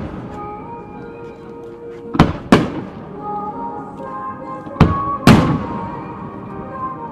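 Aerial firework shells bursting overhead: four loud booms in two pairs, each pair about half a second apart, around two and five seconds in, each with an echoing tail. Music plays steadily underneath.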